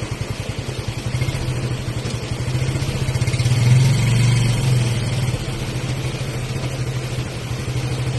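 A vehicle engine running at low revs with a rapid, even pulse, swelling louder for a moment about four seconds in.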